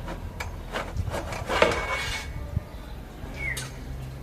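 Small metal parts and tools clinking and knocking as they are handled, several sharp clicks in the first two seconds, then a brief high squeak.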